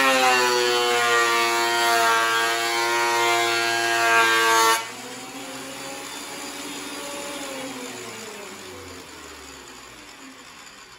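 WEN thickness planer cutting a board: a loud, steady motor and cutterhead whine for about five seconds that drops off sharply as the board clears the cutterhead. The planer then runs quieter, and near the end its pitch falls as the motor spins down.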